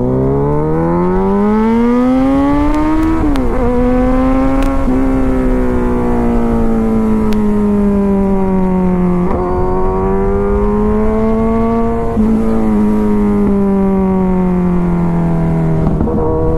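Kawasaki Ninja 1000's inline-four engine pulling away, rising in pitch for about three seconds, then shifting up and cruising with its pitch sagging slowly, dipping briefly a few times. Wind rush on the microphone runs underneath.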